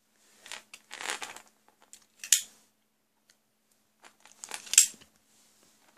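Thin twin-lead speaker wire being handled and pulled straight: three short bursts of rustling and scraping, the sharpest about two seconds in.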